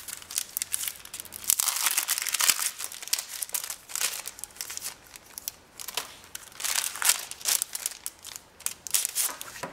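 Clear plastic cellophane sleeve crinkling and rustling as a stack of sticker sheets inside it is handled and slid out, in uneven crackly rustles.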